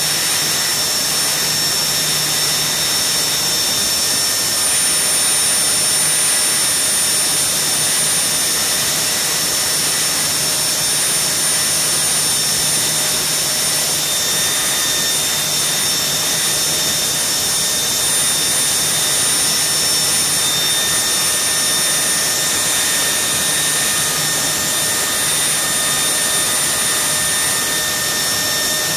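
Garrett GTP 70 gas turbine engine running steadily on a test stand: a loud, even rushing hiss with several steady high-pitched whine tones over it.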